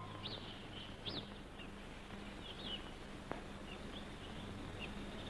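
Small birds chirping faintly, with short high chirps and quick whistled glides coming at irregular intervals, over a steady low hum. A single sharp click comes a little over three seconds in.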